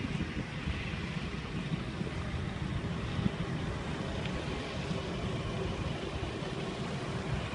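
Breezer ultralight aircraft's propeller engine running at a low taxiing power, a steady drone whose hum grows clearer in the second half as the plane comes closer.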